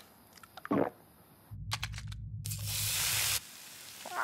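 Cartoon sound effects: a short falling tone, then a low rumble joined by a loud hiss that cuts off suddenly.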